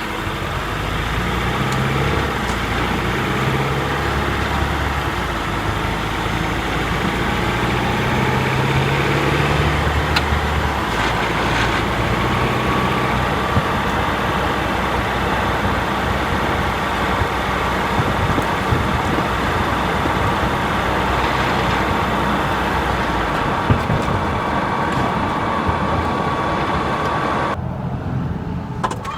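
Honda Freed Hybrid (i-DCD) drivetrain and engine running while driving cold, during warm-up, heard through cabin and engine-bay microphones mixed together. A thin whine comes in about ten seconds in and holds over the steady running noise almost to the end. This is the abnormal noise the i-DCD makes in its cold, warm-up state, most marked here with engine and motor in 5th gear.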